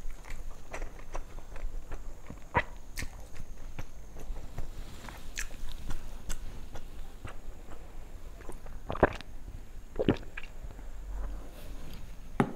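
Close-miked chewing of food with wet lip smacks and short mouth clicks, a few louder ones about nine and ten seconds in.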